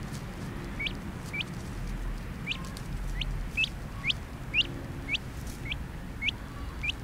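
Young pet duck, a duckling, peeping: a run of short, sharply rising peeps about two a second, starting about a second in.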